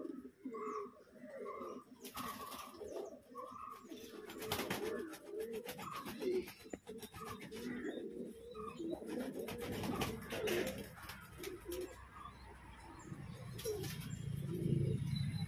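Fantail pigeons cooing over and over in low, repeated phrases. A run of short higher notes comes in the first two seconds, and scattered clicks come a couple of seconds in and again around ten seconds. A low rumble builds near the end.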